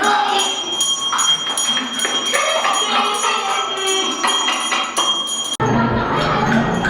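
Jingling and tapping of small bells or percussion mixed with voices, over a steady high tone. The sound changes abruptly about five and a half seconds in.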